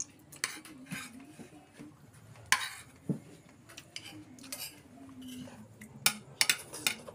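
Spoons and forks clinking and scraping against ceramic and glass bowls while people eat. The clinks come at irregular intervals, with a loud one about two and a half seconds in and a quick cluster near the end.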